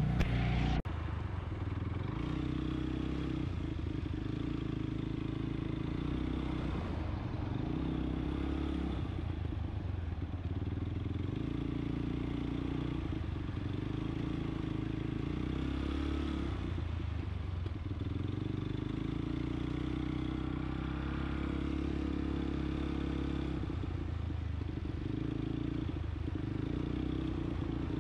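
ATV engine running, its pitch shifting up and down every few seconds as the throttle is worked.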